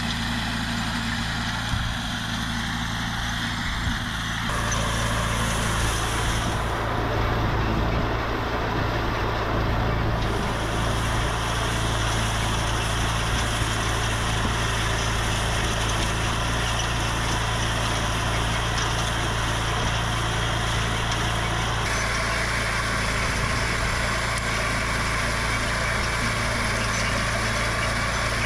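Small Honda gasoline engine on a horse-drawn forecart running steadily at constant speed, driving a rotary hay tedder as it tosses the hay. The hum holds one pitch throughout, with a few abrupt shifts in tone.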